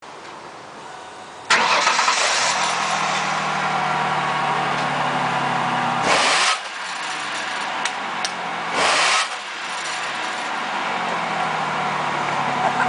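A 1999 Ford Ranger's 3.0-litre V6 starts about a second and a half in and idles, its exhaust leaving through a Coke can taped onto the tailpipe as a tip. It is revved twice, about six and nine seconds in, and the revs drop back to idle after each.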